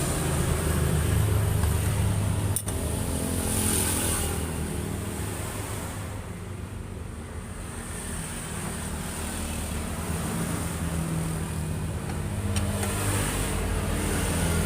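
A motorbike engine running steadily at low speed, its level easing off midway and building again, with a single sharp click about two and a half seconds in.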